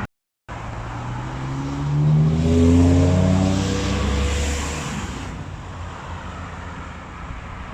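Truck driving past with its engine revving up as it accelerates, loudest about three seconds in, after a half-second silence at the start.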